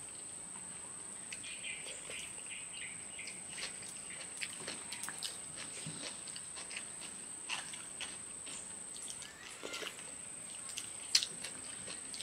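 Soft eating sounds: fingers swiping raita off banana leaves, with small mouth smacks and finger-licking. Two sharp smacks come near the end. A steady high-pitched whine runs underneath.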